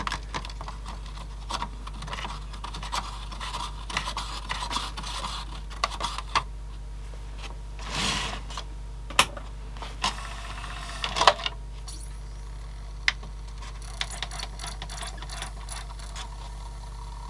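Close handling noise from an open CD player mechanism: a cotton swab rubbing on the plastic disc turntable with many small scratchy clicks. After that come a few sharper plastic clicks and knocks as the mechanism is handled and a disc is set on the spindle.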